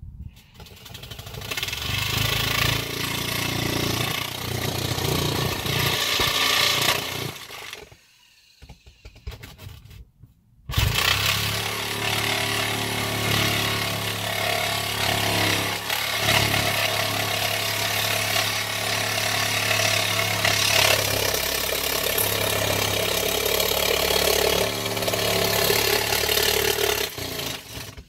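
Electric air compressor running with a steady hum, spinning up over about a second at the start. It stops about seven seconds in and starts again abruptly about three seconds later.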